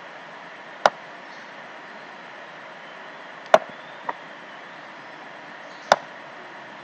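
Four sharp computer mouse clicks: one about a second in, a pair a little past halfway with the second softer, and one near the end, over a steady background hiss.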